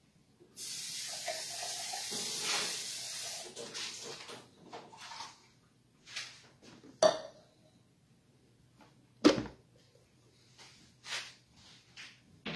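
Kitchen handling sounds: a steady hiss lasting about three seconds near the start, then scattered knocks and clinks of dishes and utensils, over a faint steady hum.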